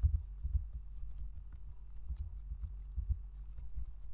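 Typing on a computer keyboard: an irregular run of keystrokes, heard mostly as soft thuds with faint clicks.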